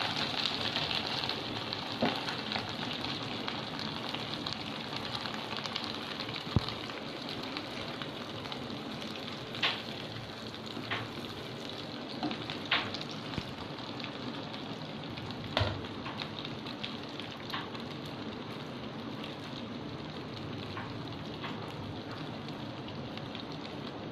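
A breaded bread patty deep-frying in hot oil, a steady sizzle that is loudest just after the patty goes in and then settles. A few short sharp taps are scattered through it.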